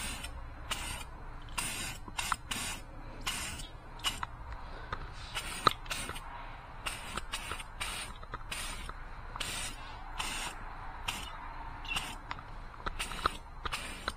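Aerosol can of Rust-Oleum truck bed liner spraying in many quick, short bursts of hiss, about two a second, with small sharp clicks between them. The can is being sprayed upside down because it had stopped spraying upright.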